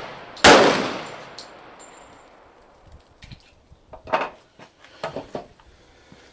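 A single shot from a Para Ordnance GI Expert .45 pistol about half a second in, with a long echoing decay. A few fainter clicks and knocks follow in the second half.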